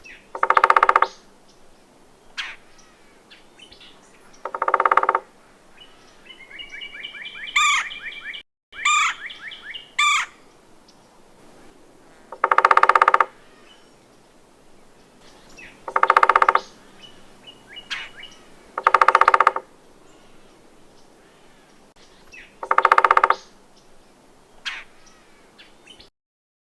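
Red-bellied woodpecker giving its rolling call, a burry churr under a second long, six times at spaced intervals. Between the second and third calls comes a run of higher, quicker notes with sharp sweeps. Faint short chips sound between the calls.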